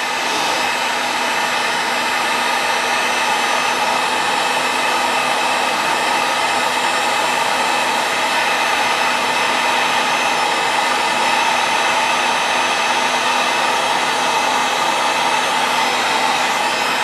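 Electric heat gun running steadily: a constant rush of blown air with a faint steady hum from its fan motor.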